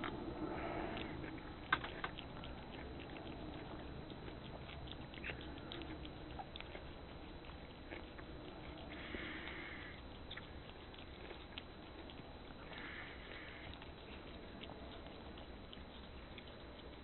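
A domestic cat licking and chewing a piece of nectarine held in the fingers: many small wet clicks and smacks of the mouth, with two short breathy sounds in the second half.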